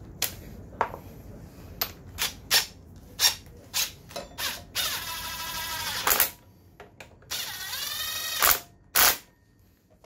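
Cordless electric ratchet driving a bolt on a scooter's front brake caliper: its motor runs twice for about a second each, the pitch changing as it spins, with sharp metal clicks and knocks of tools in between.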